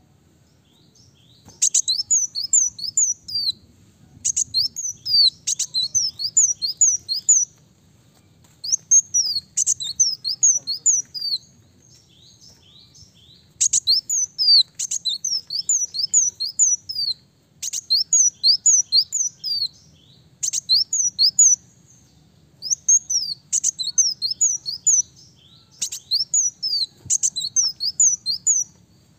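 A ruby-cheeked sunbird (kolibri daun) singing. It gives about eight phrases of quick, high, thin notes, each note sliding downward, with each phrase lasting two to three seconds and separated by short pauses.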